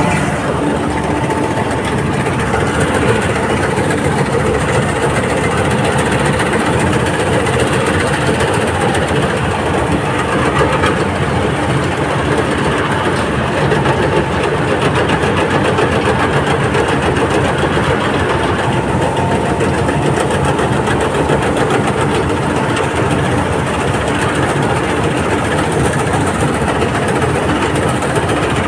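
Combine harvester running steadily under load while cutting and threshing paddy, its engine and machinery heard close up from the operator's platform.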